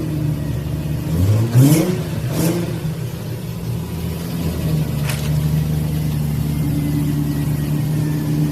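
A car engine blipped twice, rising in pitch each time, then running steadily at a raised idle.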